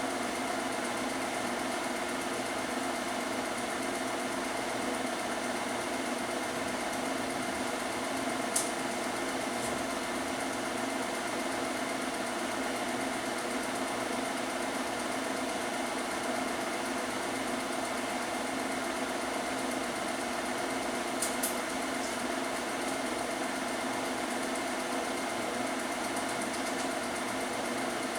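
Film projector running: a steady mechanical whir and hum, with two brief sharp clicks, one about a third of the way in and one near three quarters.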